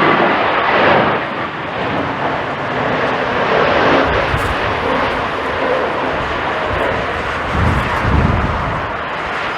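Jet airliner's engines roaring as it passes close by on a landing approach in strong wind, with gusts rumbling on the microphone near the end.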